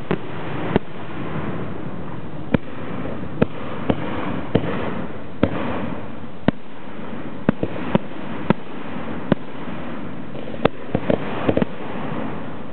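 Zambelli professional fireworks display: aerial shells bursting in sharp bangs at irregular intervals, about one a second. Near the end comes a quick run of several bangs, all over a steady background of noise.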